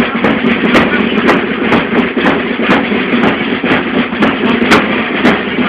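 Carnival parade music with a steady beat of sharp strikes about twice a second over sustained pitched tones, mixed with the noise of a dense crowd.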